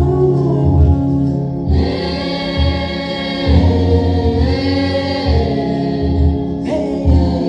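Gospel choir singing sustained lines over a steady, pulsing bass beat.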